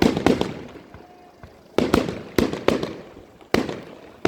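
Aerial fireworks exploding, about six loud bangs that come singly or in quick pairs, each dying away in a rumbling echo.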